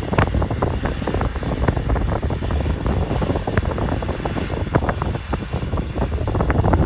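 Wind buffeting the microphone: a continuous low rumble broken by many short crackles.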